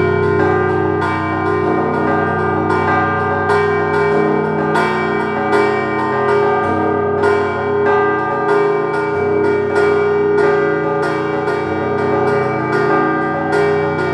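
Russian Orthodox church bells rung together: smaller bells struck in a quick, continuous pattern of several strokes a second over the long ringing of deeper bells.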